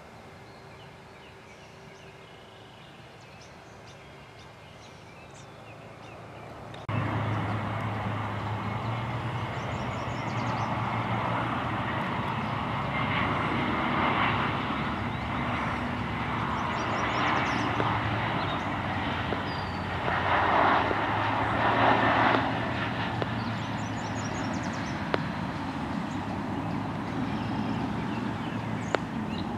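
Faint bird chirps, then about seven seconds in a jet airliner's engines start up loudly and run with a steady rush and low hum, swelling twice. Birds keep chirping over it.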